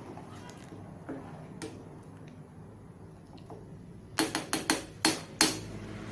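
A spoon knocking against a cooking pot: a quick run of about six sharp taps over a little more than a second, starting about four seconds in, over a low steady hum.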